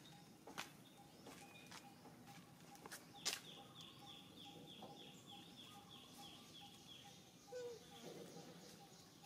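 Quiet background with a bird calling: a short, high, falling chirp repeated about three times a second for some five seconds, starting just after a sharp click about a third of the way in. Scattered faint clicks and a faint pulsing tone lie underneath.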